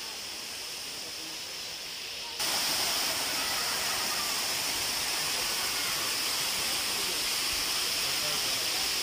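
Steady rush of water, fainter at first, then jumping abruptly louder about two and a half seconds in to the full, even roar of a waterfall pouring into a pool.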